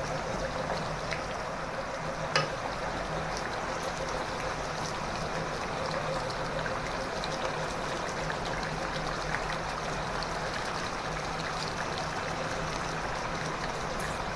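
Watery goat-liver masala gravy bubbling and sizzling steadily in a pan as it is stirred with a wooden spatula, with one sharp click about two and a half seconds in.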